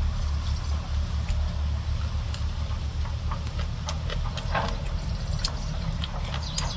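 Eating with chopsticks and a spoon: scattered light clicks and taps of the utensils, over a steady low rumble.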